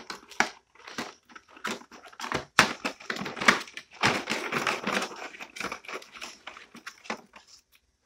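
A bully dog crunching and chewing a hard treat: a fast, irregular run of crunches and cracks, densest in the middle.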